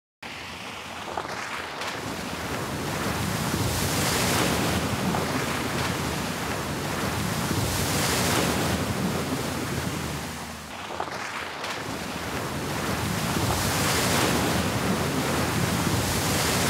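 Water rushing and spraying as a Land Rover Defender 4x4 ploughs through a flooded ford. It starts suddenly and rises and falls in several surges.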